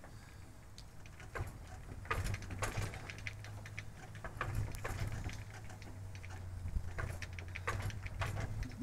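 Rotax aircraft engine's propeller being pulled through by hand: a series of irregular clicks and knocks from the engine over a steady low rumble. The engine is being turned over to push oil back into the tank before the oil level is checked.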